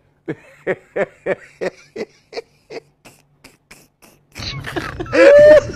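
A man's voice making a run of short repeated vocal sounds, about three a second, growing fainter. Near the end a louder voice comes in over background noise.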